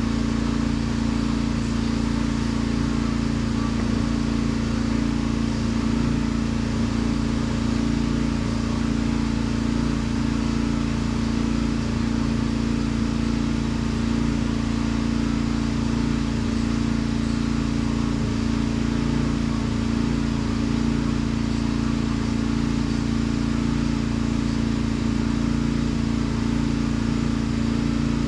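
A machine running steadily: an even drone with a constant low hum and hiss that never changes.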